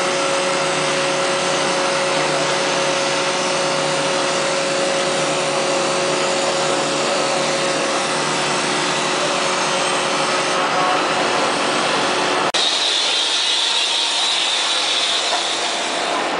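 MC2091 automatic wood-turning lathe running, its cutter milling a wooden baluster blank: a loud, steady machining noise with a few steady tones in it. About twelve seconds in it breaks off abruptly into a different, hissier machining sound.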